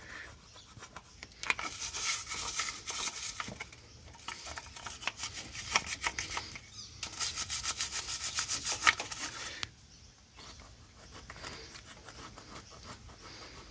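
A small plastic scraper scraping old silicone sealant off the water pump mating surface of a Mercedes W123 diesel engine, in quick repeated strokes. The strokes come in runs with short pauses and turn fainter after about ten seconds.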